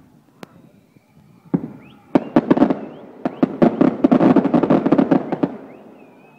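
Aerial fireworks bursting overhead: a single bang about a second and a half in, then a rapid crackle of many sharp pops for about three seconds as the shell's crackling stars go off, dying away near the end.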